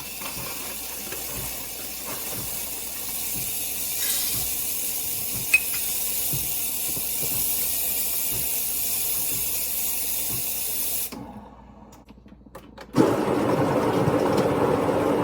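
The ILAVIE K6 espresso machine's wand dispensing, a steady hiss that grows a little louder and cuts off after about 11 seconds. About two seconds later a louder, lower-pitched steady noise starts suddenly.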